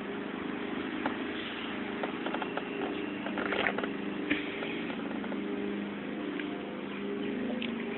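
Small go-kart engine running steadily at idle, with a few light clicks.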